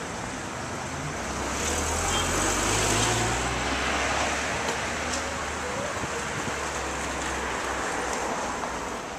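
A road vehicle driving past close by: engine and tyre noise swell to a peak about three seconds in, then fade, leaving a low engine hum that dies away near the end.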